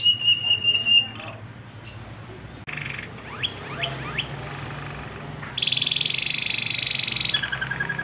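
Waterslager canary singing: a high pulsed trill at the start, a short rattle and a few quick rising whistles, then a loud rapid trill from about halfway through that drops into a lower pulsed note near the end.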